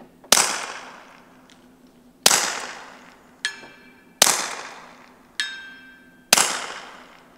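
Four suppressed .22 LR shots from a Volquartsen Scorpion pistol, about two seconds apart, each trailing off in a long echo. About a second after the second and third shots a distant steel gong rings more faintly: hits on the 200-yard gong.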